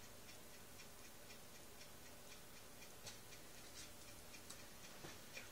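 Faint, regular ticking, about two ticks a second, over quiet room tone.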